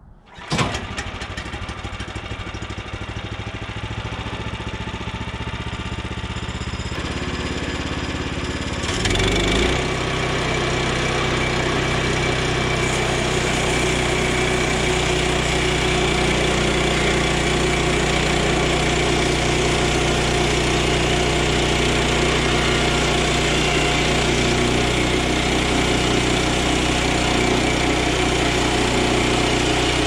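Small gasoline engine on a Woodland Mills HM122 portable bandsaw mill starting about half a second in and running at a low speed, then throttled up about nine seconds in to a steady full-speed run ready for the cut.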